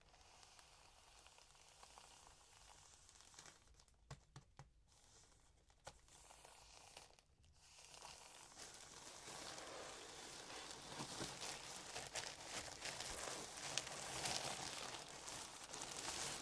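Packaging being handled and opened up close: a few light clicks and taps, then crinkling, rustling and tearing of wrapping that grows steadily louder.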